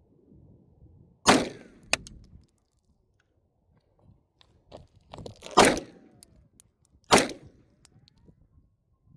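Glock 17 Gen 4 9mm pistol fired three times: one shot about a second in, then two more about a second and a half apart in the second half, with a few lighter clicks between the shots.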